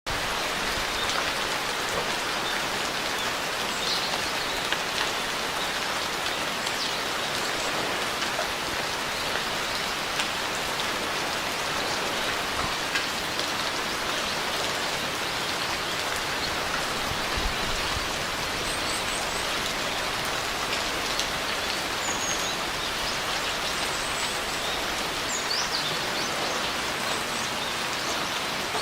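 Steady rain falling, an even dense patter of drops, with a few faint high chirps in the second half.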